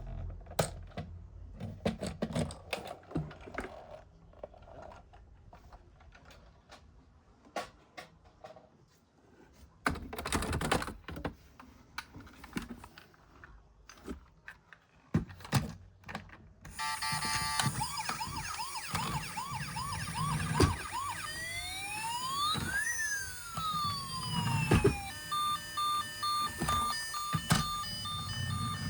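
Scattered plastic clicks and rattles of toys and packaging being handled. Then, about two-thirds of the way in, a toy emergency vehicle's electronic siren switches on: a fast repeating yelp, then slower rising and falling wails that overlap, then a rapid run of short electronic beeps.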